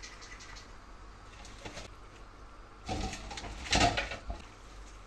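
Fresh spinach leaves rustling as a hand packs them into a pot, in two short bursts about three and four seconds in, the second louder.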